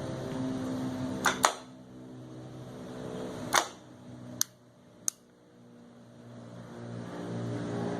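A handful of sharp clicks, a second or so apart, from the 1985 Harley-Davidson Sportster's starter as it is tried, without the engine turning over: the sign of too little battery voltage. A steady low hum fades out and builds again near the end.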